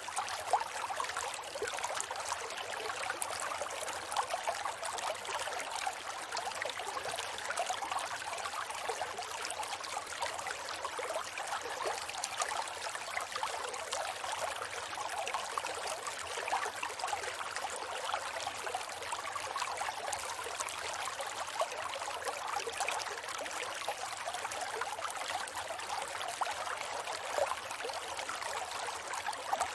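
Steady rush and trickle of a flowing river.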